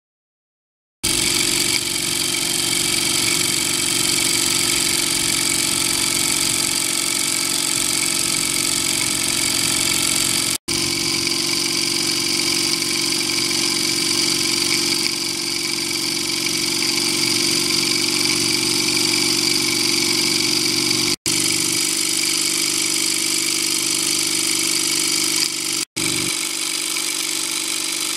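Mamod Centurion 1313C model traction engine running on live steam: its double-acting cylinder working steadily with a continuous hiss of steam. It starts about a second in and breaks off for an instant three times.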